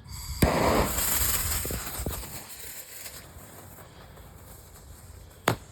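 A lit Dragonfly firecracker fuse catching with a sharp pop and sizzling for about three seconds, fading away, then one short sharp crack near the end.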